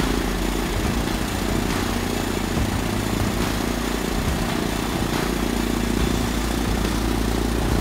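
Piper PA-28-140 Cherokee's Lycoming O-320 air-cooled four-cylinder engine idling steadily just after start, propeller turning.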